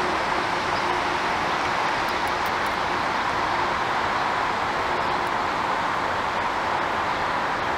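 Steady, even roar of distant city traffic.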